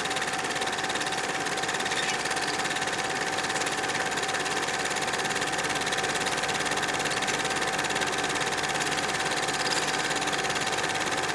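Film projector running: a steady, rapid mechanical clatter with a constant whirring tone.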